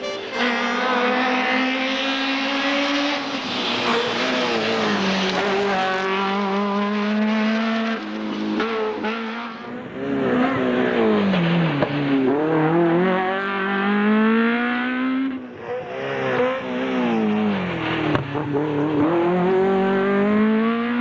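Peugeot 205 rally car engine revving hard at full throttle, its pitch climbing through each gear and dropping back several times as the driver shifts and brakes for corners.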